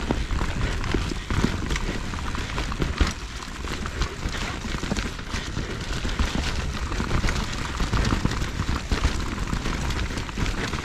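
Mountain bike descending a rough trail: tyres rolling over dirt and roots, and the bike clattering with many small knocks over a steady low rumble.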